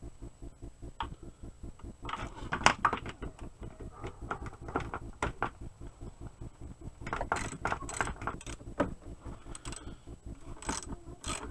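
A wrench working a winch mounting bolt loose on an ATV: a run of rapid metallic clicking, with louder clinks of the tool against metal at intervals.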